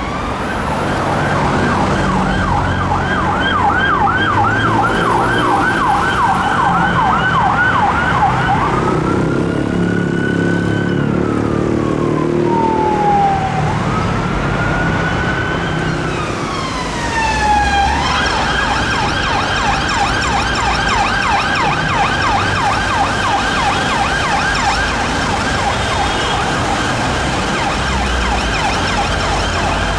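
Electronic emergency-vehicle siren, first in a fast repeating yelp, then switching at about a third of the way in to a slow wail that rises and falls twice, then back to the fast yelp just past halfway, over traffic noise.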